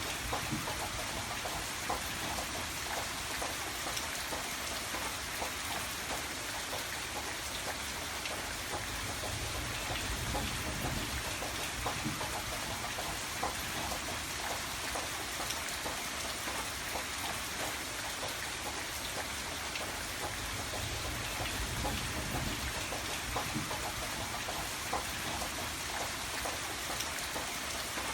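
Steady rain falling on a hard surface, with many individual drops clicking and a low rumble beneath.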